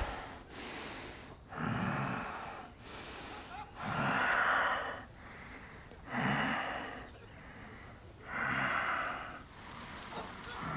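Breathy, huffing grunts voiced by an actor playing a sasquatch: four of them, each about a second long, a couple of seconds apart.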